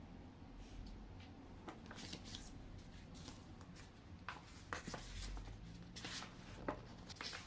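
Light handling noises: scattered soft clicks and rustles, a few sharper taps near the middle and later, over a faint low hum.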